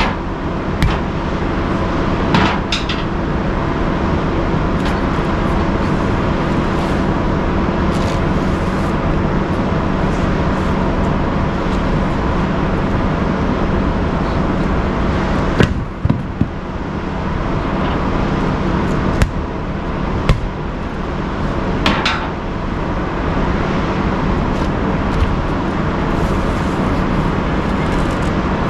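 A steep steel bead-breaker bar striking a semi truck tire at the rim, knocking the bead loose: a handful of sharp ringing strikes, a few near the start and more in the middle. Under it runs a steady, loud machinery drone.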